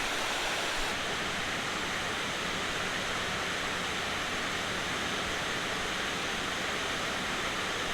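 Steady rush of river water pouring over a spillway.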